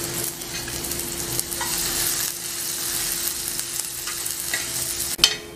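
Chopped onion, green chillies and red capsicum sizzling as they are sautéed in oil on a tawa, stirred with scraping strokes. A sharp knock on the pan comes about five seconds in, after which the sizzle is quieter.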